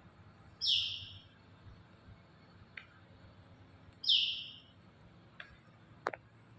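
Pialing birds calling: two loud, short high calls about three and a half seconds apart, with a few brief faint chips between them.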